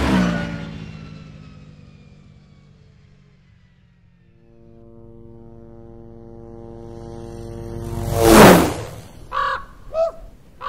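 A small ski-equipped single-engine plane passes low over the frozen river: its engine builds for several seconds, peaks loud about eight seconds in and drops in pitch as it goes by. Before it, an engine that has just passed fades away over the first two seconds; near the end a raven caws three times.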